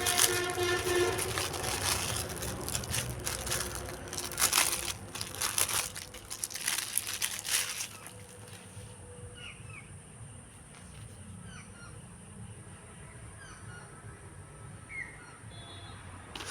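Irregular crackling and rustling for about the first eight seconds, then faint short bird chirps over a steady high hiss.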